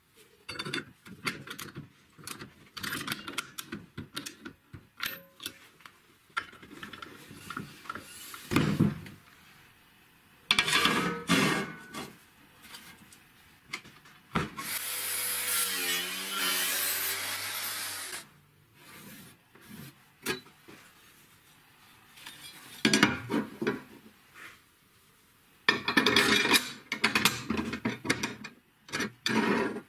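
Steel parts being handled and fitted on a wooden workbench: irregular clinks and knocks, with a steel plate slid across the bench in a steady scrape lasting a few seconds about midway.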